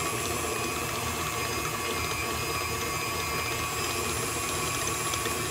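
KitchenAid Classic stand mixer running steadily with an even motor whine, its beater creaming shortening and sugar until fluffy.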